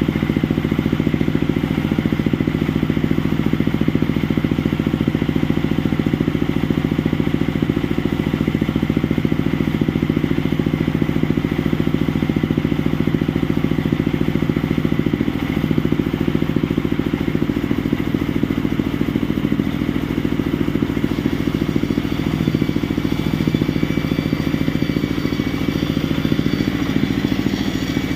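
Genset engine running steadily at constant speed during a running test. A faint high whine joins about two-thirds of the way through.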